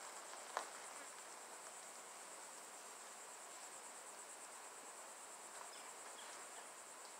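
Steady, high-pitched insect chorus with a fine rapid pulse, faint throughout, broken by a single sharp click about half a second in.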